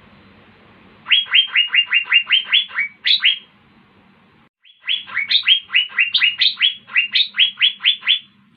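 Asian fairy-bluebird (cucak biru) singing in full song: two runs of rapid, repeated whistled notes that each slide downward, about five a second. The second run starts about halfway through.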